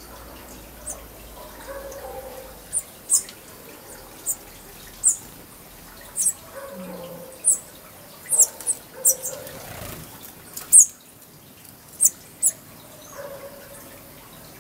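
Small birds at hummingbird feeders chirping: a string of short, sharp, very high chirps, sometimes in quick pairs, irregularly spaced, the loudest about eleven seconds in.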